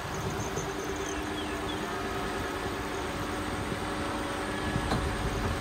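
Pickup truck towing an Imagine travel trailer along a wet road: steady tyre and road noise with a low engine hum, the low rumble building near the end.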